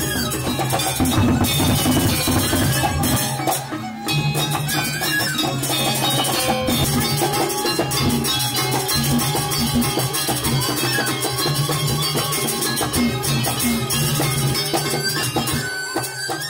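Balinese gamelan music: metallic percussion and drums playing at a steady, driving beat.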